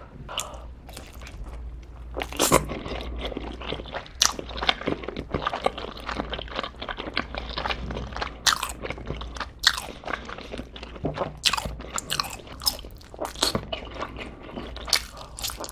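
A slice of black sugar bubble tea pizza being bitten and chewed close to the microphone: repeated crisp crunches of the crust with wet chewing sounds, irregular throughout.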